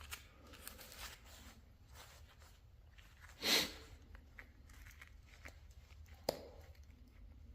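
Wood chisel paring and shaving a small wooden piece by hand: scattered light scraping cuts, one louder shaving stroke about halfway through, and a sharp tap a little later.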